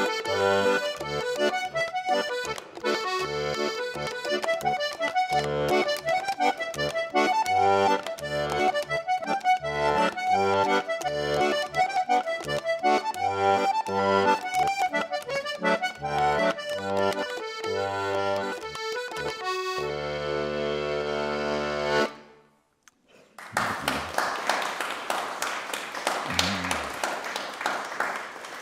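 A Hohner Erica two-row melodeon plays a lively traditional dance tune with pulsing bass chords, ending on a chord held for about two seconds. After a short silence comes a burst of audience applause that fades near the end.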